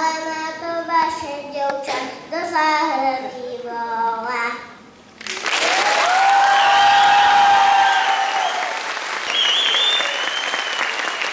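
A young boy sings solo into a microphone for about five seconds. After a short pause an audience breaks into loud applause with some whoops and cheers.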